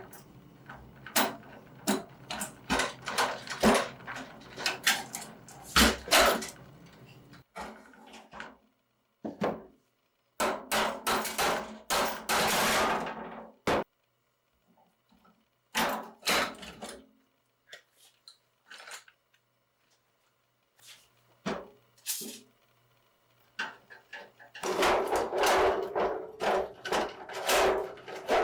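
Hand tools clanking and knocking against the steel parts of a pedal car as it is taken apart, in clusters of sharp metallic knocks and clicks separated by silent gaps.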